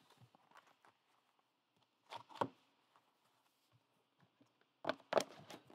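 Handling noise from a trading-card box and its foam insert being moved: faint scattered clicks and scrapes, with brief clusters of louder knocks about two seconds in and again near the end.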